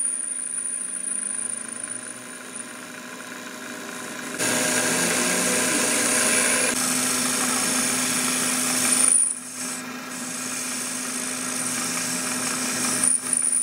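Metal lathe running with a steady motor hum, its cutting tool facing and boring the end of a spinning metal piston blank. The cutting noise grows louder about four seconds in.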